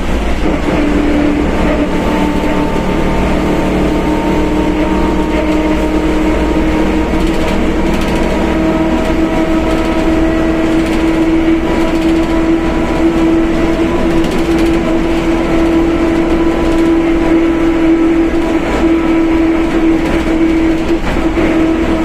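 Mercedes-Benz OF1721 BlueTec 5 bus under way, its differential howling loudly: a steady whine over engine and road rumble. The whine steps up slightly in pitch a few seconds in, then holds.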